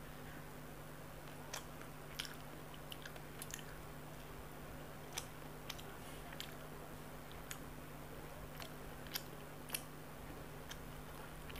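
Quiet eating by hand: scattered soft clicks and wet smacks from fingers working rice and parshe fish curry and from chewing, about a dozen in all, over a faint steady hum.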